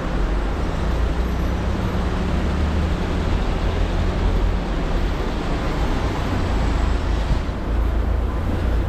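Road traffic on a city street: a steady low rumble of passing vehicles, with a heavy engine's hum that fades about halfway through.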